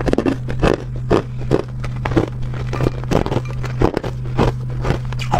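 Hard ice being bitten and crunched between the teeth: short, sharp crunches, roughly two a second, over a steady low hum.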